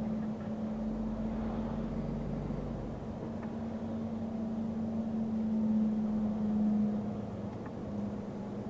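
Truck engine and road noise heard inside the cab while driving, a steady drone that swells a little about six seconds in.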